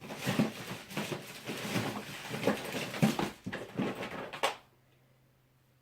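Computer cables and small parts being rummaged through in a cardboard box, rustling and clattering for about four and a half seconds, then stopping suddenly.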